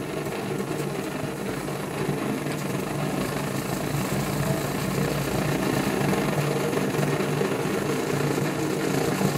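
Pre-war Hähnel No. 43 gasoline blowtorch burning, its pressurised flame making a steady rushing noise with a low hum in it, getting slightly louder over the seconds.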